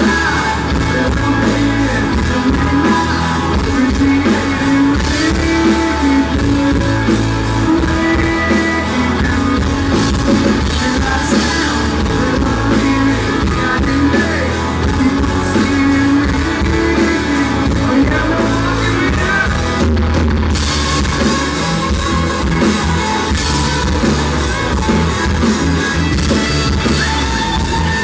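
Live country rock band playing with drums, bass and electric guitar, in a poor-quality audience recording.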